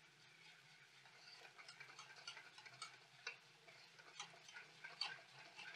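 Wire whisk faintly clicking against a stainless steel bowl as watery rice-flour batter is whisked smooth: a quick, irregular run of light ticks starting about a second in.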